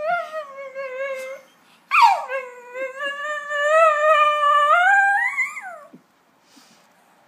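Small shaggy dog making two drawn-out whining howls, the 'talking' kind of vocalisation that some dogs use back at their owners. The first is short and level; the second lasts about four seconds, dropping at the start, then slowly rising in pitch before falling off.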